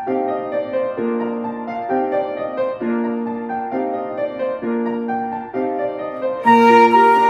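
Piano playing a short figure that repeats about once a second, with a violin melody joining near the end.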